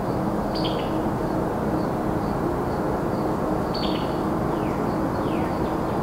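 Steady rush of distant highway traffic with crickets and birds chirping over it. Two short falling bird calls come about four and a half and five seconds in.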